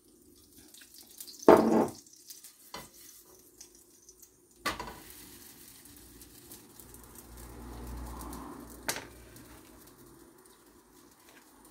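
Chapati cooking in a hot frying pan: a loud brief knock about a second and a half in, a few sharp clicks of handling in the pan, then a steady faint sizzle as the flatbread cooks.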